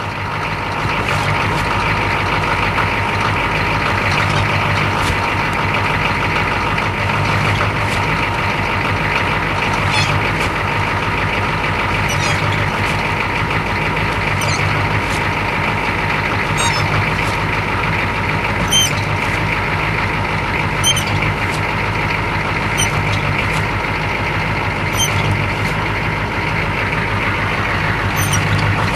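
Chevrolet K5 truck's engine idling steadily, with light clicks every couple of seconds.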